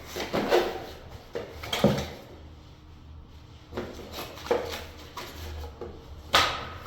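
Objects being handled and set down: a series of short knocks and rattles, about eight, irregularly spaced, with the loudest near the end.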